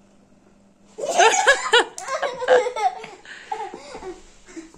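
Young girl laughing in bursts, ticklish as a handheld electric massager is brought to her back, starting about a second in and trailing off into softer giggles. A faint steady hum from the massager's motor runs underneath.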